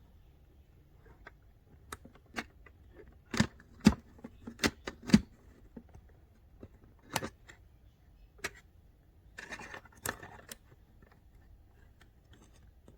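Irregular clicks and knocks of small hard objects being handled, with a run of louder knocks about three to five seconds in and a brief rustle near ten seconds, typical of tools and parts being handled on a repair bench.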